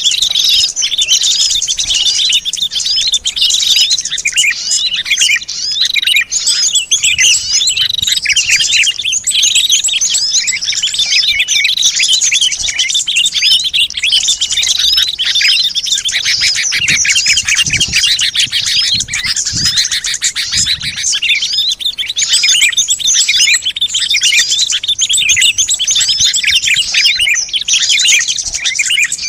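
A dense, unbroken chorus of many small songbirds chirping and twittering high-pitched. It is a lure recording meant to call small wild birds in.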